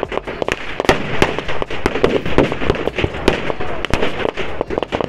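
Firecrackers going off inside a burning Ravana effigy: a rapid, irregular string of sharp bangs and cracks.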